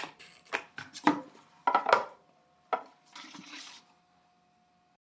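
Wooden pieces being handled: a run of sharp knocks and taps on wood, the loudest about one and two seconds in, then a brief scraping rub a little past three seconds.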